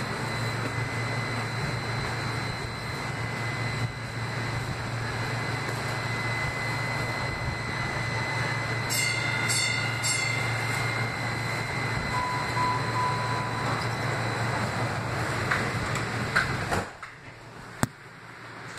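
Kinki Sharyo light rail car standing at a stop with its doors open, a steady low hum underneath. About halfway a short run of high beeps sounds. Near the end the doors slide shut and the sound drops to a quieter hum, with a single click after.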